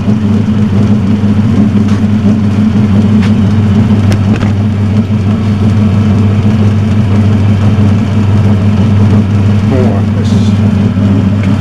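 Turnell & Odell metal lathe running steadily under its electric motor, a constant low hum with the spindle turning.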